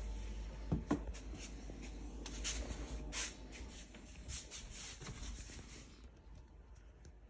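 Rustling and handling noise with a couple of soft knocks about a second in, over a low steady hum. The rustling thins out near the end.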